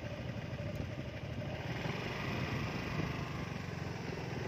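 Small motor scooter engine running steadily while being ridden, with its even low firing pulse under a haze of road and wind noise.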